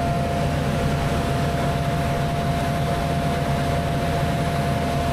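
Airport ground support equipment running steadily at a parked airliner: a low rumble and hum with a constant mid-pitched whine.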